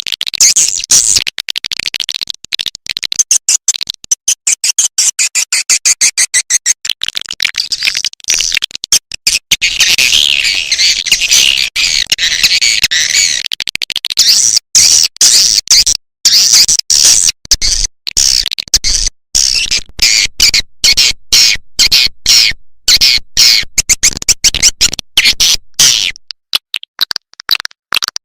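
Swiftlet calls: a dense, rapid chatter of high chirps and twitters, broken into quick pulses with brief gaps. It is a swiftlet lure call recording, the kind played to draw swiftlets into a nesting house.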